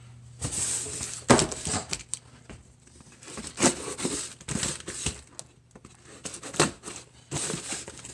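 Small cardboard box being cut open with a knife: packing tape slit and torn, the cardboard rustling and crinkling in irregular bursts with a few small taps.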